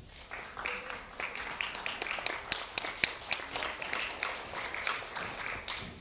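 Audience applauding, a dense patter of hand claps with a few sharp ones standing out; it starts just after the beginning and dies away near the end.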